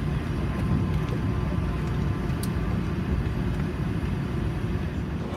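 Airbus A380 cabin noise while taxiing: a steady low rumble of the engines and the rolling airframe, heard from inside the cabin over the wing.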